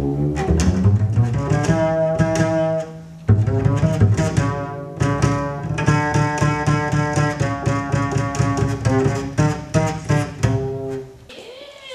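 Upright double bass played pizzicato, a run of plucked notes with a short break about three seconds in; the playing stops shortly before the end.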